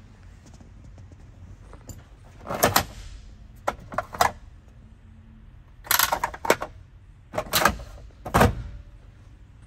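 Plastic clicks and clacks of a pull-out dashboard cupholder tray being opened, its cup holder worked and the tray pushed shut. The clicks come in five short, sharp clusters.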